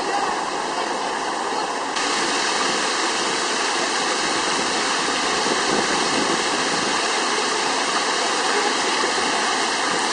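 A large city fountain's jets and water cascading over its tiered stone rims into the basin: a steady rush of splashing, falling water, which gets louder suddenly about two seconds in.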